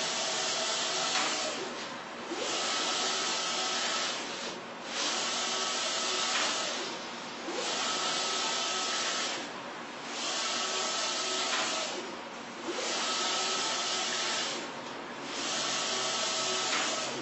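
StormJet wide-format solvent inkjet printer printing: the print carriage sweeps across the media in passes of about two and a half seconds, each a steady whir and hiss with a faint whine, with a short lull between passes.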